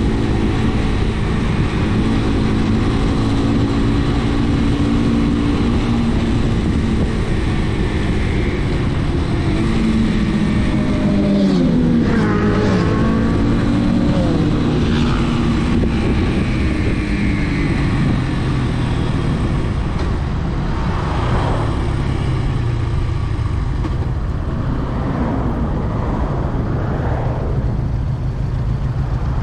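Brixton motorcycle engine running along at road speed over a steady low rush. About a third of the way in its note drops sharply, then rises and falls more faintly later on.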